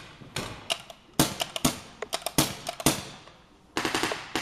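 Paintball markers firing reusable rubber balls in scattered single shots, then a quick burst of shots near the end.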